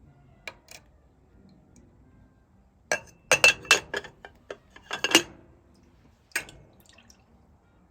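Small metal tongs and a ring clinking and clattering against a dish or cup of water and baking soda, a few single clicks and then a quick run of clinks with a light ring about three seconds in.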